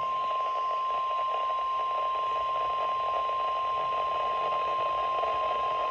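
NOAA Weather Radio warning alarm tone: a single steady pitch of about 1050 Hz held over a hiss of radio static. It signals that a weather warning, here a severe thunderstorm warning, is about to be broadcast.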